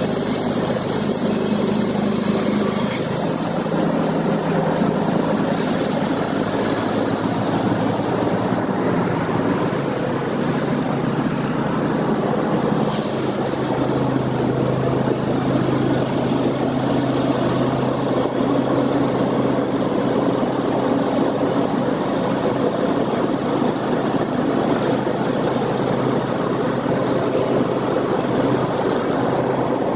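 An engine running steadily, its note shifting about 3 seconds in and again about 13 seconds in.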